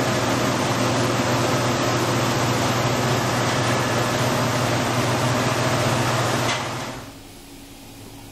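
Vibratory finishing bowl running, a steady hiss of wet cone-shaped finishing media churning around a crankshaft over a low machine hum. About seven seconds in it cuts off, leaving much quieter room noise.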